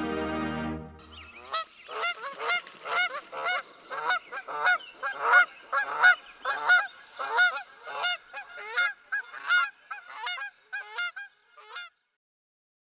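Closing music ends in the first second. Then a goose honks over and over, about two honks a second, for roughly ten seconds, and stops shortly before the end.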